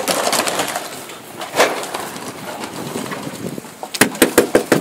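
A sharp knock about a second and a half in, then near the end a rapid, even run of sharp knocks, about five a second.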